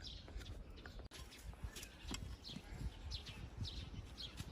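Small birds chirping over and over, in short falling chirps, with a low rumble underneath.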